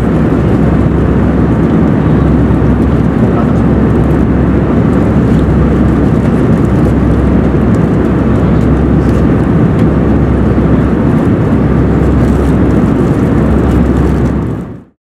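Airbus A320 cabin noise in flight: the steady roar of the engines and airflow heard from inside the cabin, fading out near the end.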